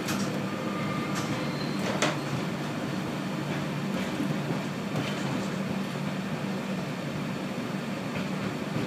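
Steady rumble of a moving passenger train heard from inside the carriage, with occasional sharp clicks and knocks from the wheels and track, the loudest about two seconds in.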